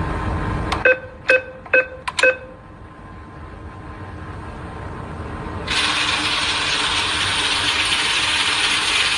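Card-swipe machine sound effects: four short electronic beeps in quick succession, like a terminal's keypad, starting about a second in. From about six seconds, a steady, louder noisy whirr follows. A low rumble stops just before the beeps.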